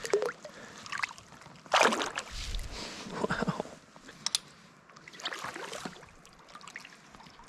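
Water splashing and sloshing around a kayak in a few short bursts, the loudest about two seconds in.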